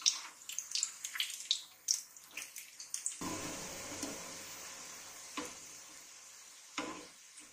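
Square pieces of potato and wheat-flour dough shallow-frying in hot oil in a non-stick pan, with a steady sizzle. Through the first three seconds a steel slotted spoon clicks and scrapes against the pan as it turns them; after that only the sizzle goes on, slowly fading.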